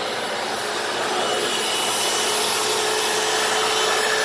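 Hoover FloorMate wet floor cleaner running steadily as it scrubs and sucks up cleaning solution from the floor: a steady motor noise that grows a little louder about a second in, with a faint steady hum joining about halfway through.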